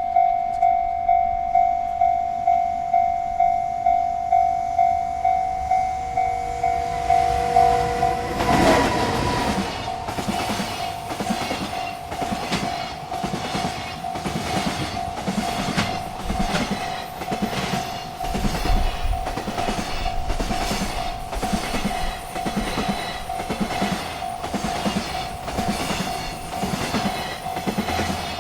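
Railroad crossing bell ringing about twice a second. About eight seconds in, a freight train arrives and rolls through the crossing, its wheels clacking rhythmically over the rail joints while the bell keeps sounding.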